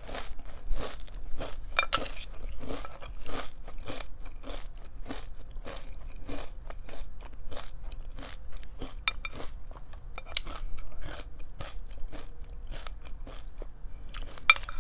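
Close-up chewing of crunchy pumpkin-spice breakfast cereal: a steady rhythm of about two crunches a second, thinning out near the end.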